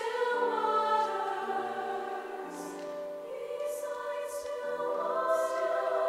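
A choir singing slow, held chords that shift from one to the next, with the singers' 's' sounds hissing out a few times around the middle.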